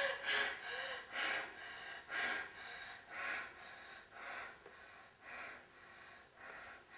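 A woman panting hard and out of breath after fighting: a heavy, airy breath about once a second, growing quieter.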